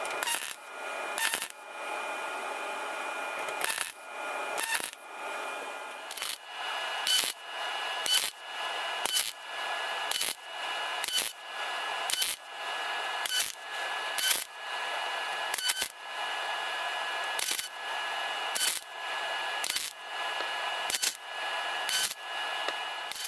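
YesWelder MIG 205DS MIG welder laying short spot welds in thin automotive sheet metal: a brief crackling burst of arc about once a second, stitching a patch panel in by filling the gaps between earlier tacks. A steady whine sounds underneath.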